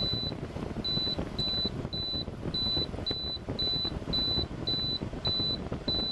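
Frigidaire LRA087AT7 window air conditioner's control panel beeping, about eleven short high beeps at roughly two a second as the temperature button is pressed repeatedly to raise the set point. The unit's fan runs steadily underneath.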